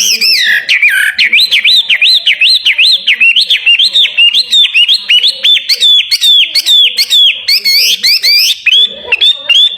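Caged contest songbird singing loudly and continuously: a fast run of repeated whistled notes, each sweeping sharply up or down in pitch, about two to three a second.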